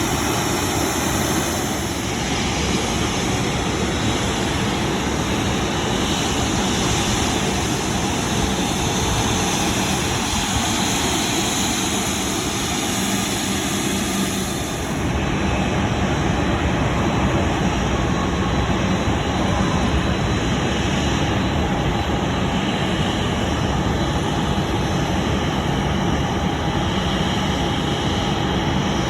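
Jet airliner engines running loud and steady, a dense roar; about halfway through the high hiss falls away and a deeper rumble comes up.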